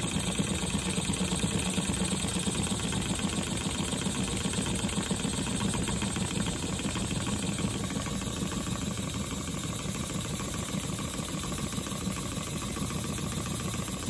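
Stuart 10H single-cylinder model steam engine (¾ in bore by ¾ in stroke) running steadily on 4 psi of compressed air, making a fast, even beat of exhaust puffs and working parts.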